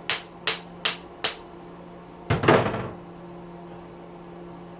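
Four quick hammer blows on metal parts of an electric weed whacker's motor, about one every 0.4 s, then a louder, longer bang about two and a half seconds in: knocking at a part that is stuck and a little rusty. A steady low hum runs underneath.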